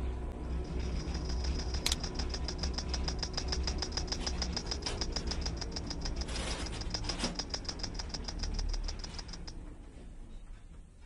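Rapid, even mechanical clicking, about ten clicks a second with a thin high tone, over a low rumble; the clicking stops about nine and a half seconds in, with a brief hiss near the middle.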